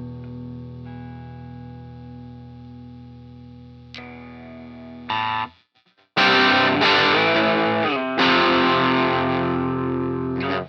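Cherry burst Strat-style partscaster electric guitar played through a distorted amp tone. A chord rings out and fades for about five seconds. After a brief stop, loud distorted chords are strummed, cutting off near the end.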